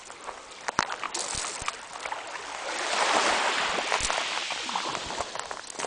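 A small sea wave washes in over a beach of broken shells, swelling to a hiss about three seconds in and fading as it draws back. Scattered light clicks run through it.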